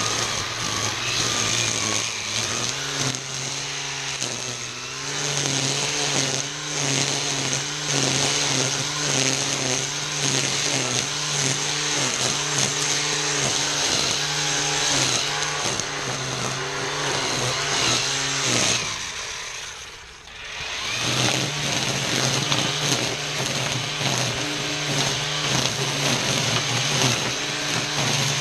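ECHO 58V battery string trimmer (PAS2620 power head with Pro-Torque trimmer attachment) running at speed, its line whipping through tall weeds and grass with a steady motor hum and a hiss. About two-thirds of the way through, the motor winds down for a couple of seconds, then spins back up and keeps cutting.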